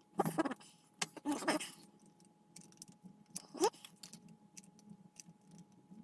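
Small hard objects being handled on a workbench: a few short clattering, clicking sounds, with a louder burst just after the start and another about a second in, and a brief rising sound near the middle.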